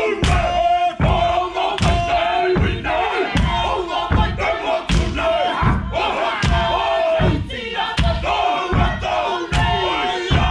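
Māori haka: a group of men chanting and shouting in unison, with rhythmic stamps and slaps about every three-quarters of a second.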